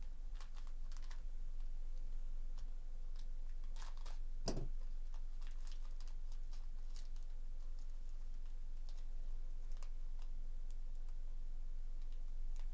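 Foil wrapper of a sealed trading card pack crinkling and tearing as it is peeled open by hand, a run of scattered small crackles with one louder crackle about four and a half seconds in, over a low steady hum.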